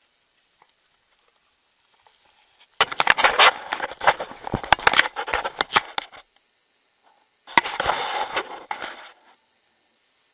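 Two spells of rustling and crackling handling noise, the first about three seconds long and the second shorter, a second or so later.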